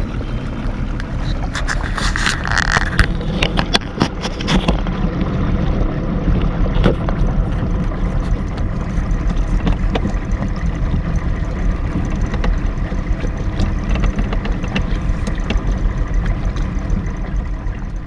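A 70 hp outboard motor running steadily, pushing an aluminium fishing boat across choppy water. A run of sharp knocks comes in the first few seconds, with lighter ones later, as the hull meets the chop.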